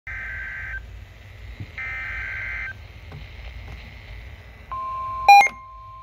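Midland NOAA weather radio receiving a tornado warning: two short buzzy bursts of digital SAME header data, each under a second, then about five seconds in the steady single-pitch warning alert tone begins, with a short loud beep over it.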